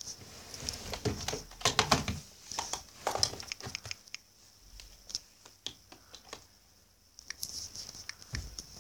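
Irregular light taps and rustling handling noise from fingers typing on a tablet's touchscreen keyboard, with quieter gaps in between.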